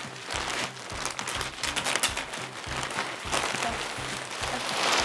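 Plastic mailer bags and plastic wrapping crinkling and rustling as they are opened and handled, over background music.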